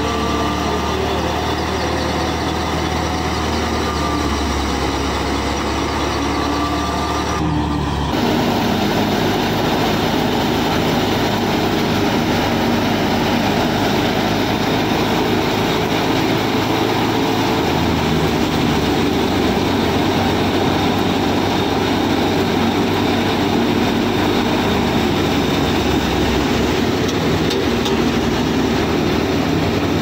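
A small model wheat thresher, driven by a small electric motor, running steadily as wheat stalks are fed in. It makes a continuous mechanical whir, which becomes denser and slightly louder about eight seconds in.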